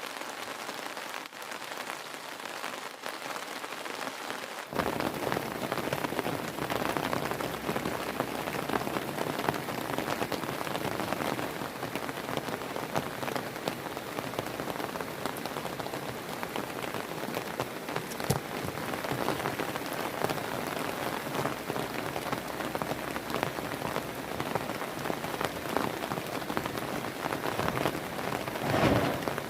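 Heavy rain falling, a dense steady patter of drops on surfaces; it steps up suddenly and becomes fuller about five seconds in, with a brief louder swell near the end.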